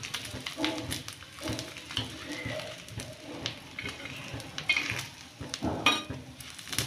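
Eggs and bread frying on a hot flat griddle with a light sizzle, while a metal spatula scrapes and taps against the pan surface as it presses and turns the bread. The scrapes come irregularly, with the loudest near the end.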